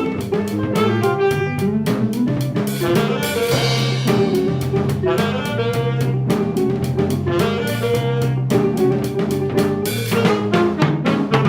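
Instrumental band playing a jazz-funk arrangement: a drum kit keeps a steady beat under saxophone and brass lines and low bass notes.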